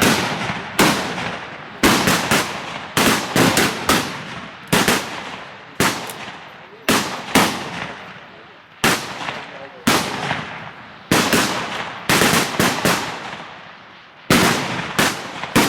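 Rifle shots from several shooters firing at once along a 300 m line, carbines and standard rifles. They come at irregular intervals, sometimes two or three close together, about twenty in all, and each crack trails off in a long echo.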